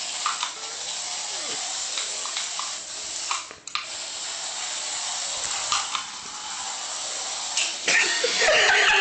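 Small remote-controlled toy car running, a steady high hiss with a short break about three and a half seconds in. A louder, rougher noise comes in near the end.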